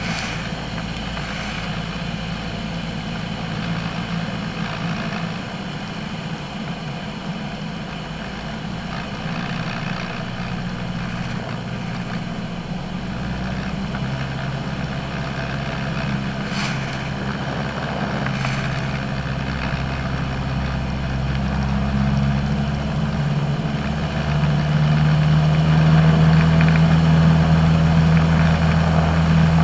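Single-engine light aircraft's piston engine and propeller droning steadily inside the cockpit. The drone gets louder in steps, once about halfway through and again near the end, as engine power comes up.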